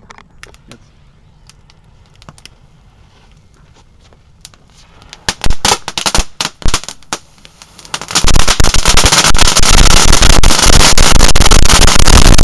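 A heap of small firecrackers going off on concrete: scattered sharp cracks for the first several seconds, then from about eight seconds in a loud, continuous run of rapid pops and crackling.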